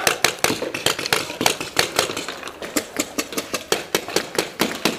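Paintball marker firing a rapid string of sharp shots, about four to five a second.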